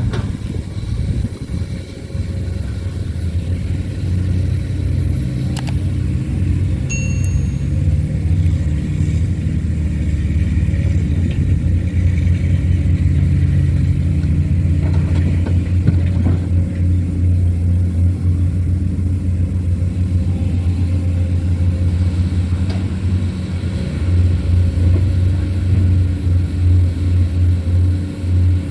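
Komatsu PC200 excavator's diesel engine running steadily under working load while loading soil, with a few short knocks.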